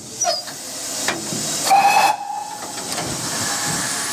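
Steam hissing steadily in the cab of GWR King class locomotive King Edward II, from the boiler backhead fittings, with a few sharp metallic knocks in the first second and a loud, brief high tone about halfway through.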